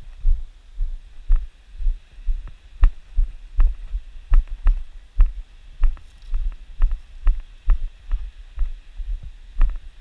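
Footsteps of a hiker walking on loose sandy, gravelly ground, picked up by a body-worn action camera: a steady rhythm of dull low thuds, about two steps a second, each with a light crunch.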